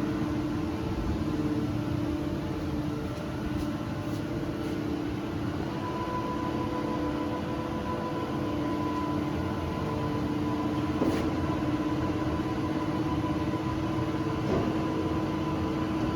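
Droop & Rein FASH 2500 CNC bed milling machine running with a steady machine hum. A higher steady whine joins about six seconds in, and there are a couple of light knocks.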